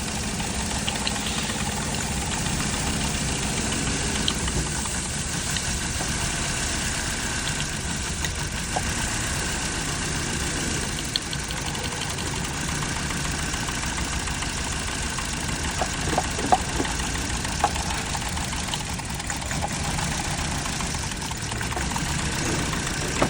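Car engine idling with a misfire, running steadily under the bonnet, with a few light clicks about two-thirds of the way through.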